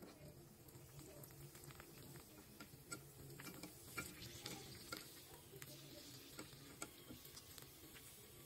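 Fuchka (puri) shells deep-frying in hot oil in a karahi: a faint sizzle with scattered sharp crackles and ticks as they puff up.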